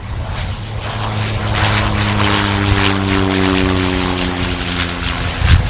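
Cessna Grand Caravan's PT6A turboprop and propeller passing close by on landing. It is a steady hum that grows louder from about a second in, its pitch sliding slightly lower, with a brief thump near the end.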